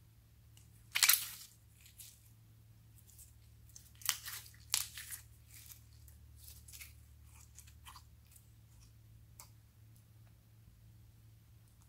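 Foam-bead slime being stretched and squeezed by hand, crunching and crackling as the beads pop. There is a loud burst about a second in, a cluster around four to five seconds, then a few fainter crackles.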